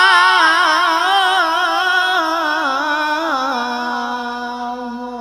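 A male Qur'an reciter drawing out one long melodic note in the murattal-mujawwad style, heard through a microphone, with quick wavering ornaments as the pitch steps down. He settles on a steady lower held note for about the last second and a half, fading slightly.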